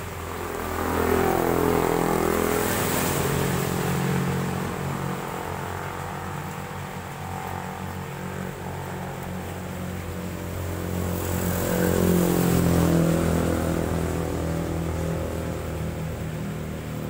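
Motorcycles passing on a wet road, engine note rising and then falling as they go by, with tyre hiss off the wet asphalt. A second vehicle passes the same way about eleven to thirteen seconds in.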